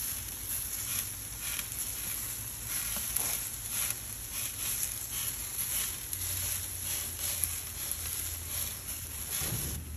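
Herb butter sizzling on split lobster tails grilling over a charcoal fire, a steady hiss with many small crackles.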